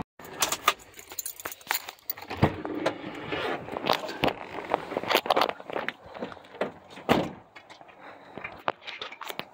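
Irregular clicks, knocks and rattles of handling around a truck: keys jangling and the cab door being worked, with a heavier thump about seven seconds in.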